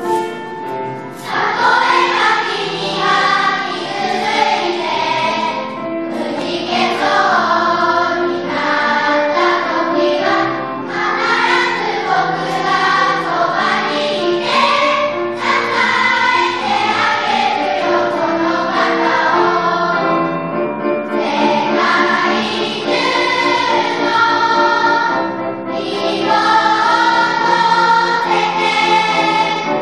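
Music: a choir singing with accompaniment.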